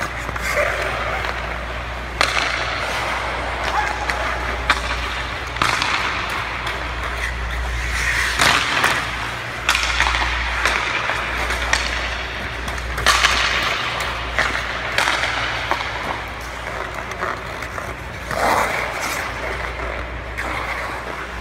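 Hockey skate blades scraping and carving on ice in repeated surges as the player strides, turns and stops, with a few sharp clicks over a steady low hum.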